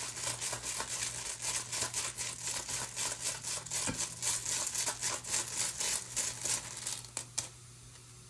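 A bag of runes being shaken and rummaged through by hand: rapid, irregular rustling and rattling that stops about seven and a half seconds in, as a rune is drawn.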